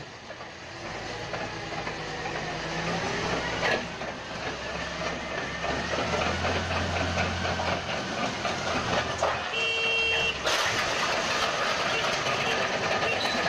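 Large diesel crawler bulldozer running under load as it pushes into a brick wall, with rubble and masonry breaking and falling. The engine note grows heavier midway through.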